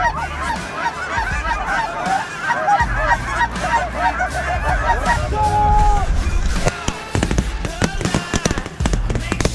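A large flock of Canada geese honking overhead, many calls overlapping at once. One longer held honk comes about five seconds in, and several sharp cracks start about seven seconds in.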